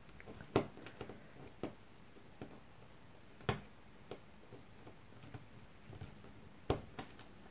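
Scattered light metallic clicks and ticks as a small hand tool works a metal jump ring closed through an eyelet in a paper page, with the sharpest clicks about half a second, three and a half seconds and nearly seven seconds in.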